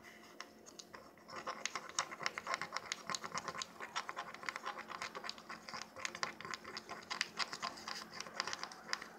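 Wooden stick stirring salt into shampoo in a small glass jar: rapid, irregular scratching and scraping of salt grains and wood against the glass, several strokes a second, starting about a second in.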